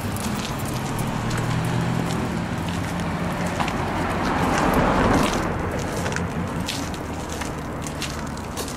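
Steady low hum of a running vehicle, with scattered clicks and a broad swell of noise about halfway through.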